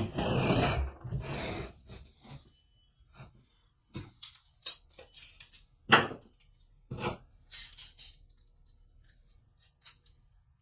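A loud scraping, rasping noise for about the first two seconds, then a few separate knocks and clicks of wood pieces and tools being handled on a workbench.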